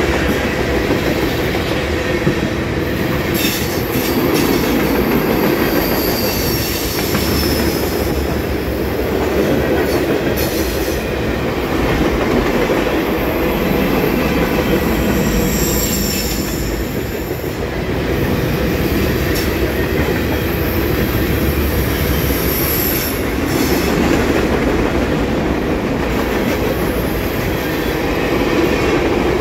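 Freight train of tank cars and covered hoppers rolling past close by: a steady rumble of wheels and clatter over the rail joints, with high-pitched wheel squeals coming and going several times.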